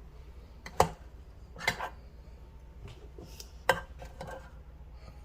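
A spoon clinking against a non-stick baking pan and plates while biscuit cups are scooped out: three sharp knocks over a few seconds, with fainter clatter between.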